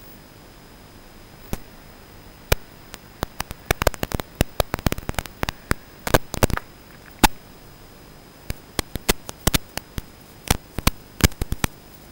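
Static on the FPV goggles' recording: a steady hiss with a faint high whistle, broken by irregular sharp crackles that begin about a second and a half in and come thickest around the middle.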